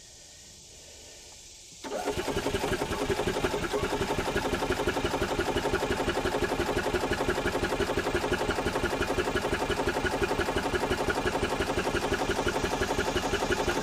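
The Yamaha G29 golf cart's single-cylinder engine is cranked over by its starter with the carburetor off, a fast, even chugging that starts about two seconds in and stops near the end. The cranking works the fuel pump, to test fuel flow through the disconnected fuel line.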